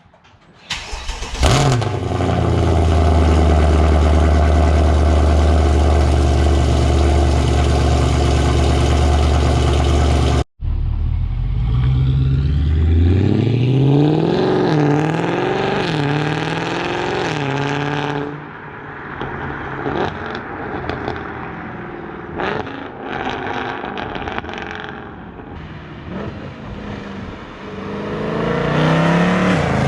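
Mercedes C63 AMG V8 exhaust, running catless long-tube headers, an X-pipe and stock rear mufflers. It starts with a brief flare about a second in, then holds a steady idle. After a short break it is blipped several times, each rev rising and falling, and it revs up once more near the end, all kept low in the rev range.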